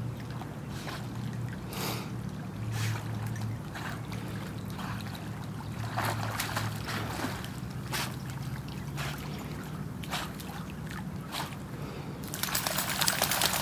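Water splashing and trickling softly and on and off as a Doberman paddles through a lake. Near the end the splashing becomes louder and busier.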